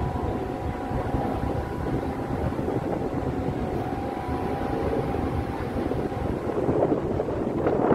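Wind on the microphone over a low, steady engine rumble, swelling near the end.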